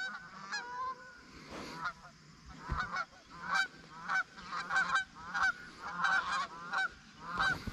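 Geese honking: a quick series of short honks, several overlapping, sparse at first and getting busier from about three seconds in.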